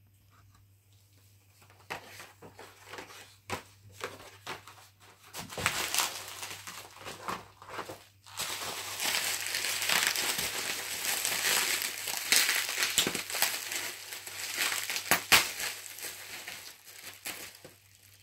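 Bubble wrap crinkling and crackling as it is handled and pulled off a packaged diecast car, starting about two seconds in with many sharp crackles and a dense stretch of rustling in the middle.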